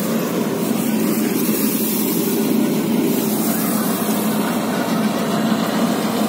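Diesel farm machinery engine running steadily, a constant hum with a broad rushing noise over it.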